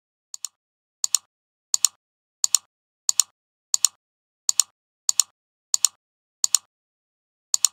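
Computer mouse button clicking in a steady run, about a dozen clicks roughly one every two-thirds of a second. Each click is a quick double snap, the press and the release.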